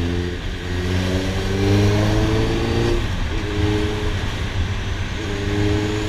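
Honda CB650's inline-four engine accelerating, rising in pitch for about three seconds, then dropping at a gear change and pulling steadily in the next gear.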